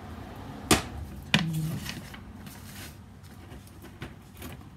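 Sharp clicks of hard plastic and metal parts of a STIHL pole pruner attachment being handled: two loud clicks about a second apart, then a brief rustle and a couple of faint taps near the end.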